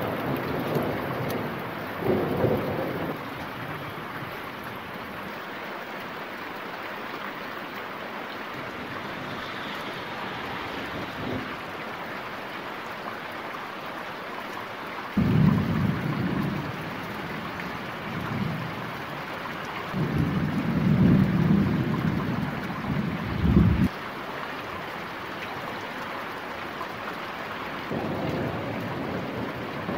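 Steady rain hissing under a thunderstorm, with low rolling thunder three times: at the start, again about halfway through, and a longer rumble about two-thirds of the way in.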